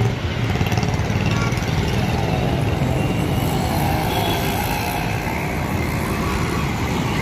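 Steady road traffic noise: engines of passing cars, motorbikes and small trucks.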